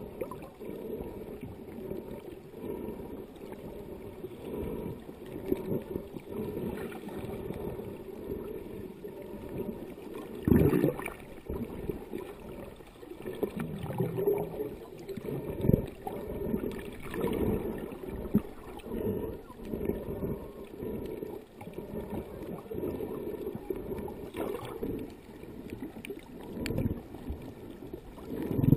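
Muffled water sloshing and gurgling around a camera held just below the sea surface, heard through its underwater housing, with a few louder splashing surges, the strongest about ten seconds in and right at the end.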